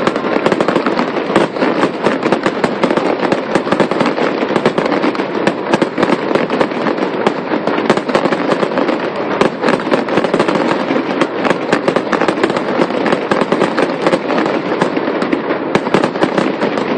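Aerial fireworks going off in a dense barrage: many sharp bangs and crackles overlapping, several a second, without a break.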